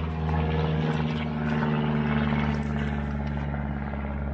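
A steady engine drone, low and continuous, its pitch shifting slightly about a second in.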